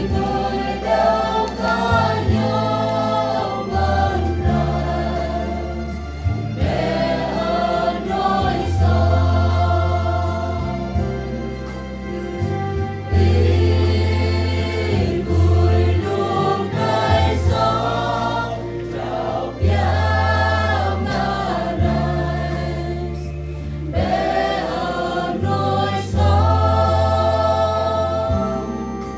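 Mixed choir of women and men singing a hymn in Jarai, over a deep bass accompaniment that holds each note for a second or two before moving on.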